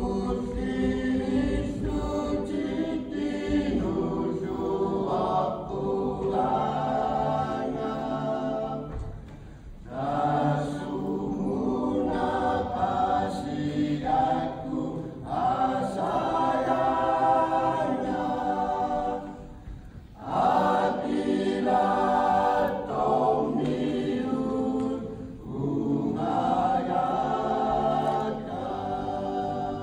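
A mixed choir of men and women singing together, in long phrases broken by short pauses about ten and twenty seconds in.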